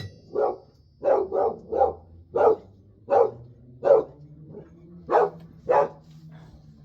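A pet dog barking repeatedly, about ten separate barks at a steady pace, with a few fainter ones mixed in.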